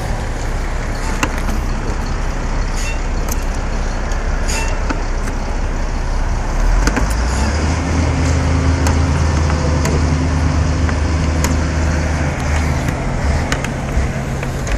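Electric standing-seam roof seamer running along a metal roof panel seam, grabbing the seam. Its motor hum comes in strongly about six seconds in and holds steady until shortly before the end, over a constant noisy background with scattered sharp clicks.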